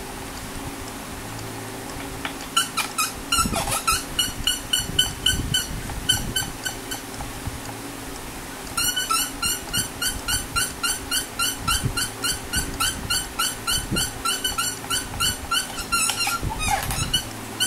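Rhythmic squeaking from the Ibanez S520's tuning pegs being wound at the headstock during re-stringing, about five short squeaks a second. The squeaking runs in two stretches, with a pause of a second or two between them.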